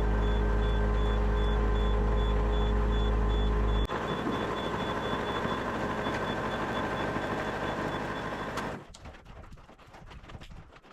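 Yanmar VIO50 mini excavator's diesel engine running with its hydraulics being worked, cycling the quick coupler's cylinder back and forth to purge air from the freshly resealed circuit. A faint high beep repeats over the engine. The deep hum cuts off abruptly about four seconds in, and the engine stops a little before the end, leaving faint clicks.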